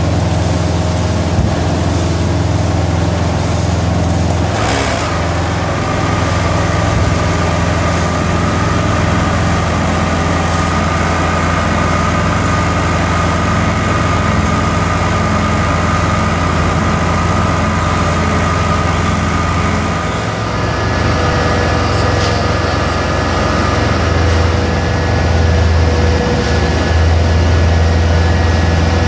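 Heavy diesel machinery running steadily: a ready-mix concrete truck discharging and a Somero laser screed working. A low engine hum is joined by a thin whine through much of the stretch, with a brief clatter about five seconds in, and the engines grow a little louder near the end.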